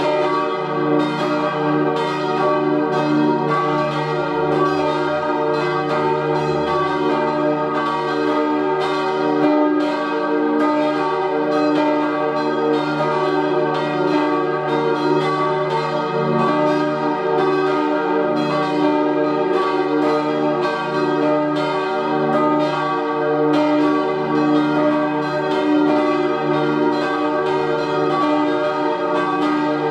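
Swinging church bells, cast by Rüetschi in 1888 and tuned E-flat, G, B-flat and high E-flat, ringing together in a continuous peal. The strikes overlap without a break.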